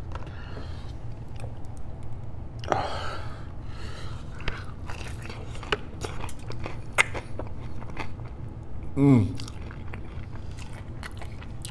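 Close-miked chewing of a breaded fried chicken finger dipped in sauce: crunches and wet mouth clicks. About nine seconds in there is one short voiced sound from the eater that falls in pitch.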